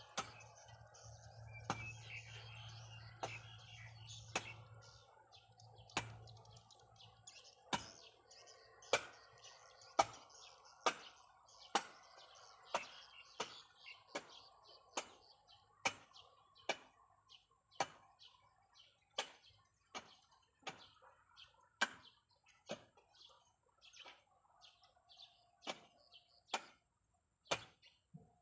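Birds chirping, with a sharp knock about once a second throughout.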